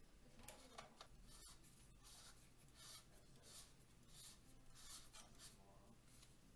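Faint plastic rubbing and scraping as a 3D-printed tube's threaded sections are twisted and handled, in a series of short strokes.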